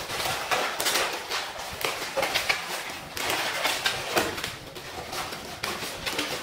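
Long latex twisting balloons squeaking and creaking as they are twisted and rubbed against each other by hand, in quick irregular squeaks.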